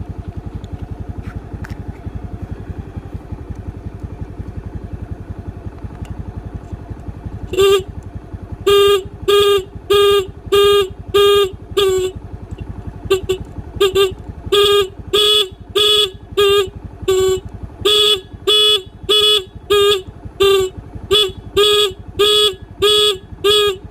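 Motorcycle electric horn wired through a turn-signal flasher relay, so it sounds in short on-off beeps, about one and a half a second. The beeping starts a third of the way in, pauses briefly near the middle, and then carries on, over a steady low running hum.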